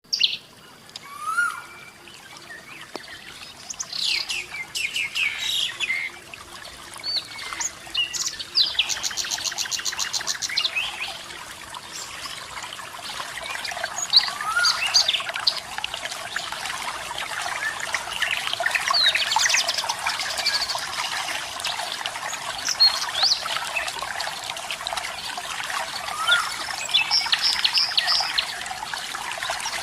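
Several wild birds calling and singing in short chirps and whistles, with a rapid trill about nine seconds in, over the steady rush of running water that grows louder around the middle.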